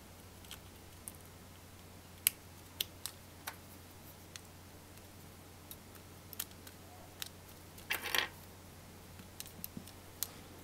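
Light plastic and metal clicks and taps as audio jacks are fitted into the holes of a small circuit board, with a short scrape of handling about eight seconds in.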